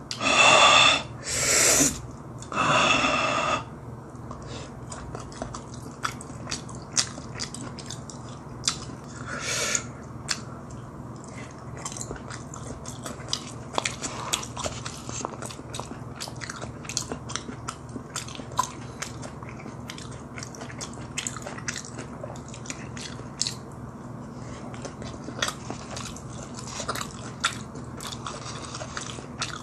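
Close-up eating sounds: chewing and many small clicks and scrapes of a plastic utensil in a paper cup of spicy Carbo Buldak rice. Three loud breathy puffs come in the first few seconds.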